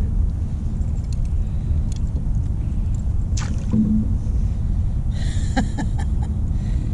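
Steady low rumble throughout. A few light clicks and a brief rustle near the end come from a blue catfish being handled and worked free of a tangled wire Alabama rig.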